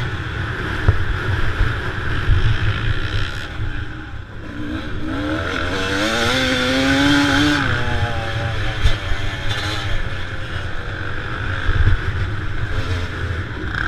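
Dirt bike engine running under throttle, with heavy wind buffeting on the bike-mounted microphone. About four seconds in the throttle briefly drops off, then the engine winds back up in a rising pitch and holds for a couple of seconds.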